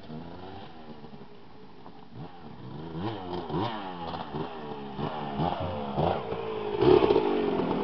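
Dirt bike engine revving up and down again and again, faint at first, then louder, loudest about seven seconds in.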